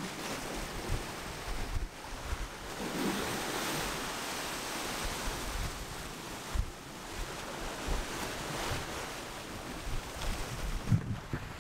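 Ocean surf washing against the rocks at the foot of a sea cliff, a steady rushing hiss, with wind buffeting the microphone in brief low thumps.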